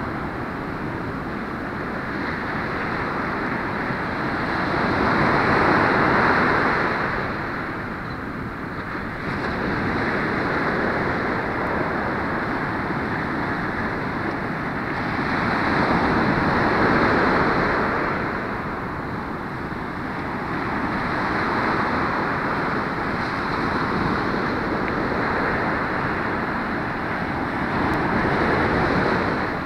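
Ocean surf breaking and washing up a sandy beach: a continuous rushing that swells louder about every ten seconds as each set of waves breaks.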